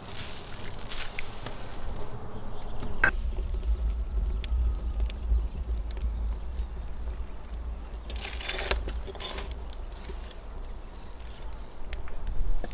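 Wood fire crackling and popping in a brick oven, with scattered small cracks over a steady low rumble and a brief rushing surge about two-thirds of the way through. A few light clinks of a spoon stirring meat in a steel cauldron come first.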